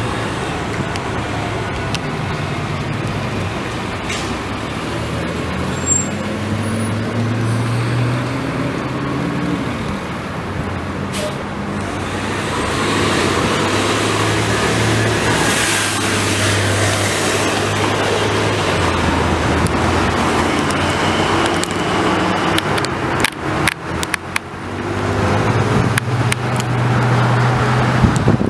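Road traffic with a city bus passing close by: a low, steady engine hum, with a rush of tyre and engine noise in the middle as the bus goes past. A few sharp knocks come near the end.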